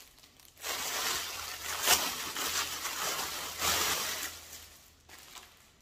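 Gift packaging rustling and crinkling as a present is handled and unwrapped, in uneven bursts, loudest about two seconds in and dying away near the end.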